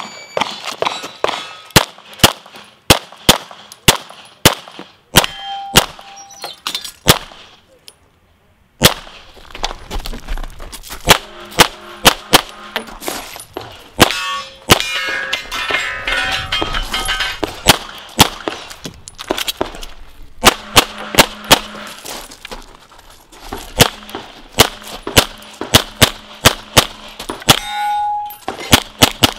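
Strings of rapid pistol shots from a CZ Shadow 2, fired in quick pairs and bursts, with steel targets clanging and ringing as they are hit. There is a short lull about eight seconds in before the shooting resumes.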